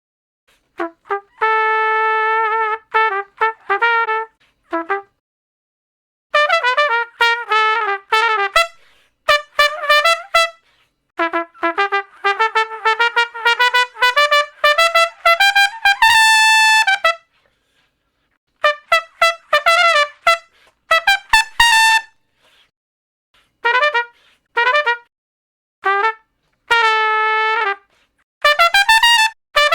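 Solo trumpet playing short melodic phrases of quick notes, separated by brief silences, with one long held high note about sixteen seconds in.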